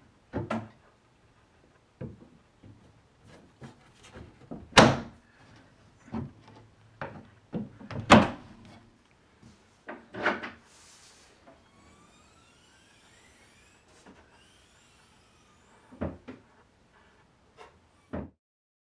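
Wooden desk-bed and its metal mechanism arms knocking and clunking as the arms are hooked on and the bed is unlocked and lowered: a series of sharp knocks, the loudest about five and eight seconds in, with a few more near the end.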